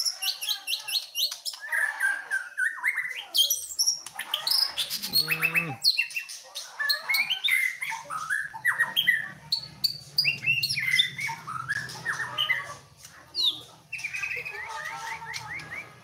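White-rumped shama (murai batu) singing a rapid, varied song of whistles, chirps and clicks, its notes gliding up and down.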